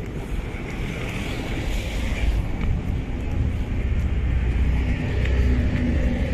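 Street traffic with a heavy low rumble from vehicles and wind on the microphone, and a hiss that swells and fades about one to two seconds in.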